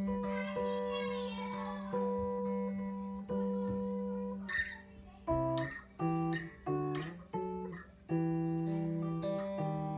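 Acoustic guitar played note by note, with a low note ringing on beneath the picked melody.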